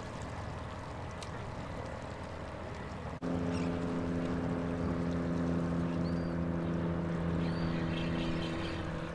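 Open-air noise that breaks off suddenly about three seconds in, replaced by a steady, even engine drone. A few short high bird calls sound over the drone.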